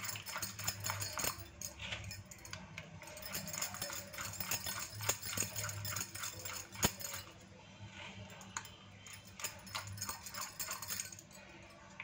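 A blue plastic spoon beating a thick flour-and-milk batter in a bowl, with irregular clicks and scrapes as it knocks against the sides. The batter is being worked smooth to get rid of lumps.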